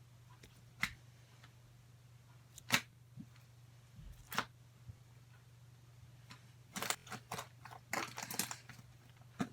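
Slime being squished and pressed, giving sharp clicking pops: three single pops a second or two apart, then a quick run of crackly clicks near the end.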